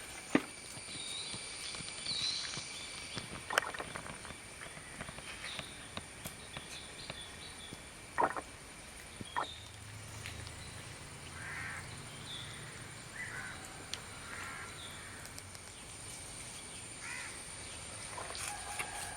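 Crows cawing now and then among other short bird calls, with a few sharp clicks and knocks in between.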